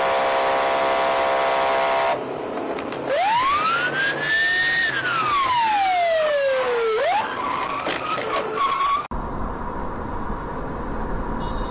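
A steady horn-like blare lasting about two seconds, then a siren wailing over road noise: its pitch rises, falls slowly and starts to climb again. About nine seconds in the sound cuts to quieter traffic noise.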